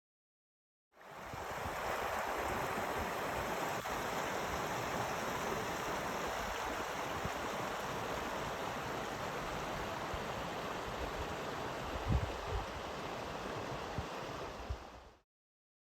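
Steady rushing of a mountain stream, with a few low thumps near the end. The sound fades in about a second in and cuts out shortly before the end.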